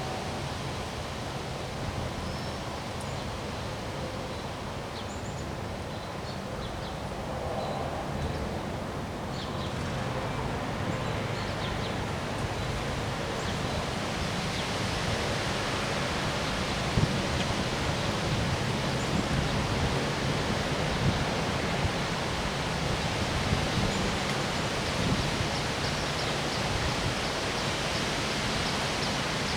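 Wind blowing outdoors as a steady rushing noise that picks up about a third of the way in, with a few small clicks and knocks in the second half.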